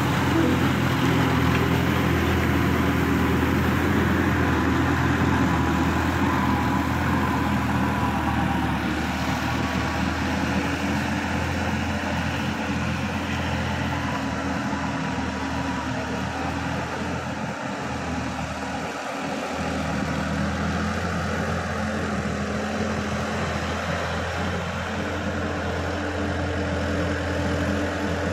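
Sonalika DI-50 RX tractor's diesel engine running steadily as the tractor works a flooded paddy field with a rear-mounted rotavator. The engine sound fades a little as the tractor moves away and comes up again near the end as it heads back.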